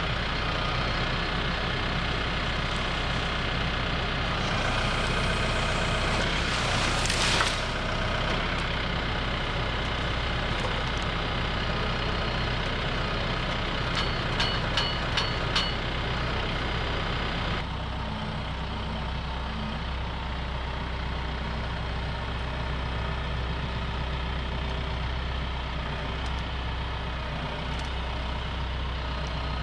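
TYM T654 tractor's diesel engine running steadily while its loader handles brush with a grapple rake, with a swell of noise about seven seconds in. Four short high beeps sound about halfway through.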